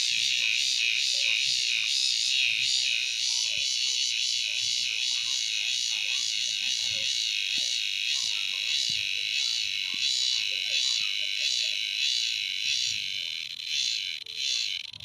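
A cicada calling while held in the hand: a loud, shrill buzz that pulses about twice a second and cuts off near the end.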